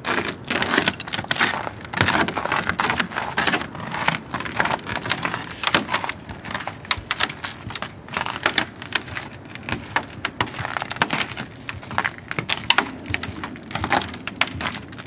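Footsteps crunching on a snow-dusted wooden boardwalk, a dense, irregular run of crunches and creaks as two people walk.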